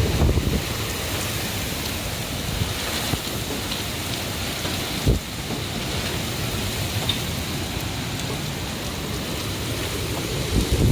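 Typhoon rainstorm: a steady hiss of heavy rain with wind, and a single sharp knock about five seconds in.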